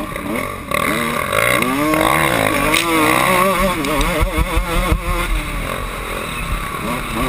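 Kawasaki KX125 two-stroke motocross engine revving hard under way, its pitch climbing, then rising and falling quickly as the throttle is worked, and settling lower near the end.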